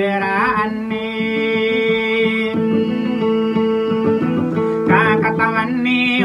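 A man singing a slow song, holding long notes, to his own acoustic guitar.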